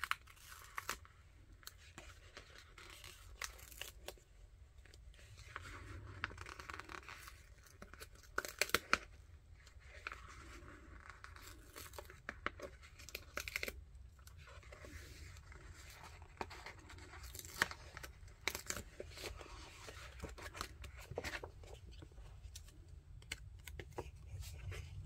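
Paper stickers being peeled off their backing sheet, with crinkling paper and a few sharp ticks, and a sticker-book page being turned.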